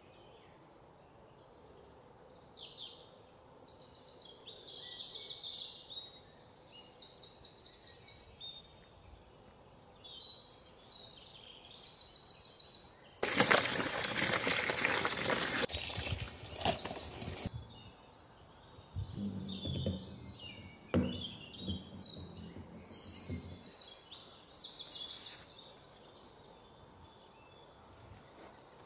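Songbirds chirping throughout. About halfway in, water pours into a plastic bowl of button mushrooms for about four seconds, followed by hands moving the wet mushrooms about in the bowl.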